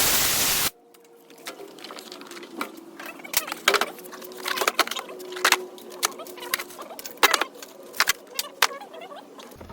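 A short loud burst of hiss, then metal hand tools clinking and clattering at irregular intervals as they are picked up and set down.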